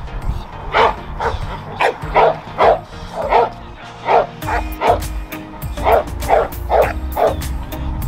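A dog barking over and over, about two barks a second, over background music.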